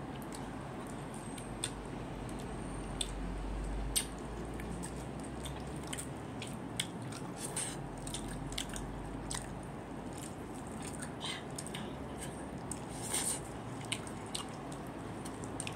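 A child chewing food, with many small scattered clicks and smacks from the mouth over a steady background hiss.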